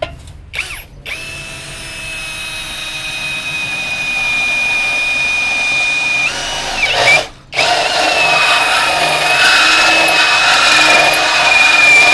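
Dekton cordless drill driving a hole saw into galvanized sheet-steel channel: a steady high motor whine with metal-cutting grind that grows louder under load. It cuts out briefly about seven seconds in, then starts again.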